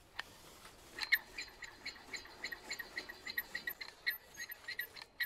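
Slot car with a front motor and drive shafts running laps on the track, giving a faint run of short squeaky chirps, about four a second, that starts about a second in.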